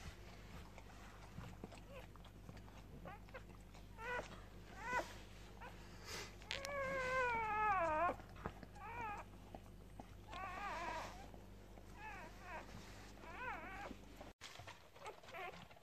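Newborn English Springer Spaniel x Kelpie puppies crying while nursing: a string of short, high, wavering squeaks, with one longer cry falling in pitch about six and a half seconds in.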